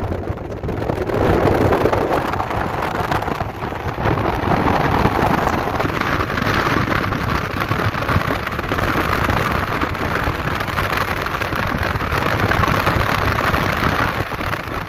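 Steady road and wind noise of a car driving at highway speed, heard from inside the car.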